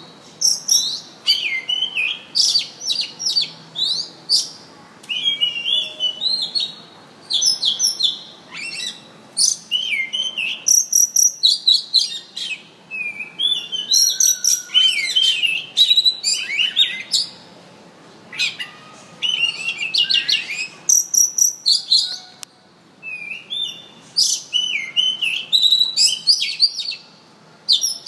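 A murai cacing songbird singing a varied song of whistled gliding phrases and sharp chirps. The phrases come in rapid bursts about every second, with brief pauses between runs.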